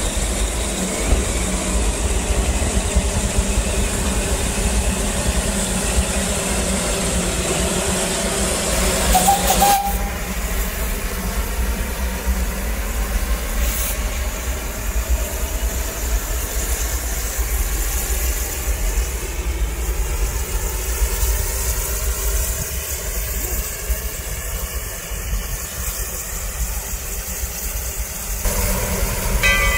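Steady hissing of steam from an 1882 Baldwin oil-fired narrow-gauge steam locomotive. Its steam whistle begins to sound right at the end.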